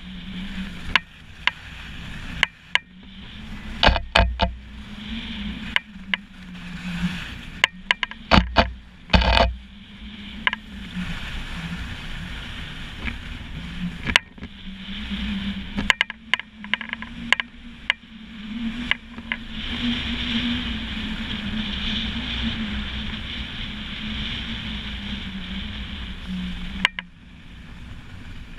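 Wind and rushing air on a GoPro in its housing while skiing, with a wavering whistle-like tone and scattered sharp knocks, most of them in the first ten seconds.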